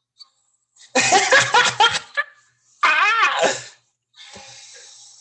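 A person's loud burst of laughter, pulsing for about a second, then a second laughing cry that rises and falls in pitch, followed by a fainter hiss near the end.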